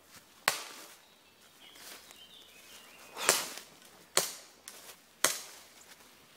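Airsoft replica firing four single shots, each a sharp crack with a short tail: one about half a second in, then three more about a second apart between three and five seconds in.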